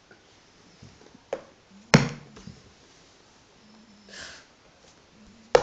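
A long-haired dog close to the microphone: a short sniff a little after four seconds, among a few sharp clicks, the loudest about two seconds in and another at the very end.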